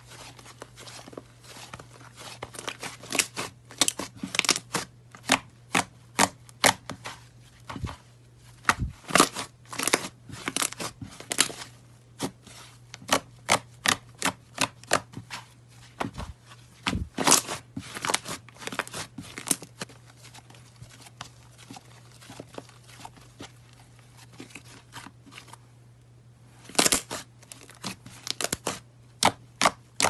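Light green fluffy slime being stretched, squeezed and poked by hand, giving off many irregular sharp clicks and pops in quick clusters. The clicks thin out for a few seconds past the middle, then start again loudly near the end.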